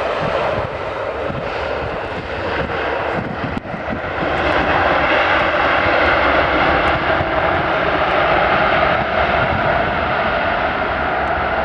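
Boeing 737-800 jet engines (CFM56-7B turbofans) running on the landing rollout just after touchdown: a steady jet noise that grows louder about four seconds in.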